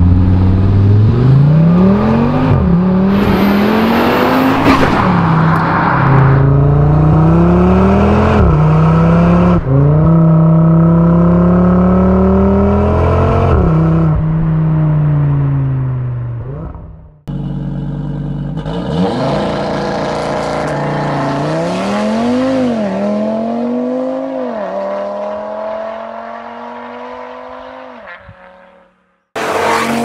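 Audi RS3's turbocharged 2.5-litre five-cylinder engine through an aftermarket exhaust, the first run on a Cobra Sport exhaust. The engine accelerates hard through the gears, its pitch climbing and then dropping at each upshift about every three to four seconds, and fades as the car pulls away. After a cut, an RS3 blips its throttle twice, pulls away with the pitch rising and fading out, and a short loud burst follows near the end.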